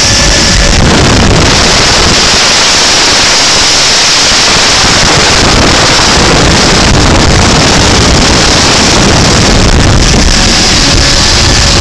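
Wind blasting across a phone's microphone aboard a speedboat running at about 90 mph, a loud, unbroken rush that buries the boat's engine and the water noise beneath it.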